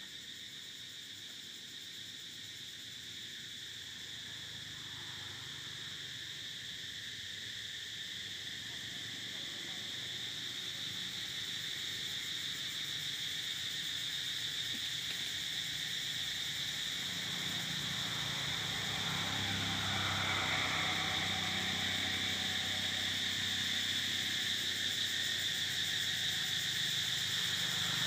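A steady, high-pitched drone of insects calling in chorus, growing gradually louder. A low rumble joins it a little past the middle.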